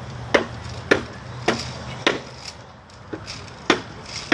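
Hand tool chopping into wood, carving out a wooden bowl by hand: sharp strikes at a steady pace about every half second, four in a row, a short pause, then two more.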